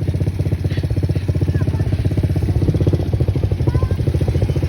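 ATV engine running steadily, with an even pulsing beat.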